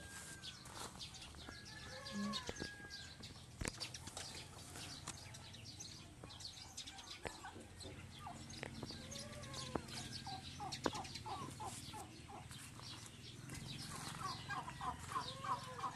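Chickens clucking faintly, with a quick run of short clucks near the end.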